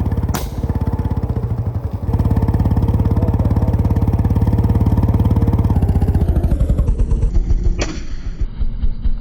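Royal Enfield Bullet's single-cylinder engine running with a fast, even exhaust beat that slows and turns uneven in the last few seconds. Two sharp cracks, one about half a second in and one near the end, are typical of exhaust misfire pops.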